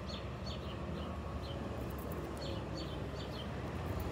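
Small birds chirping: short, quick chirps that slide downward, about two a second, over a steady low background rumble.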